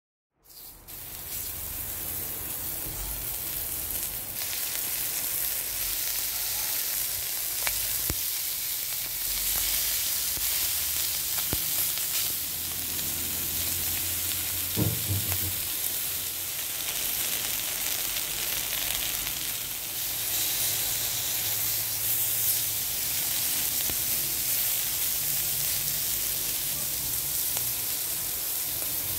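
Beef short ribs sizzling steadily as they fry in a little oil and their own rendered fat in an enamelled cast-iron pot. The sizzle starts after a brief silence and builds over the first few seconds, with a short low knock about halfway through.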